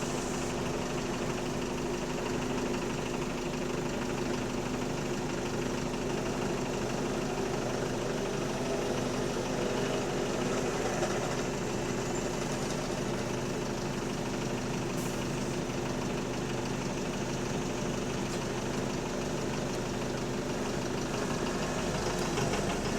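Bus diesel engine idling with a steady, loud knocking, which is taken for a worn connecting-rod bearing (rod knock).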